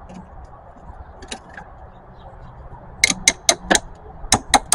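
Socket ratchet clicking in quick, even strokes, about five clicks a second, starting about three seconds in, as the positive battery terminal clamp is worked on a newly fitted car battery.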